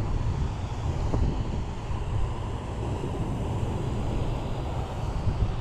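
Wind buffeting the microphone: a steady, fluttering low rumble with no distinct events.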